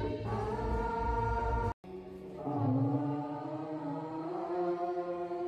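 Devotional hymn sung as a slow, sustained chant. About two seconds in it cuts out abruptly for a moment, then the singing resumes on a different note.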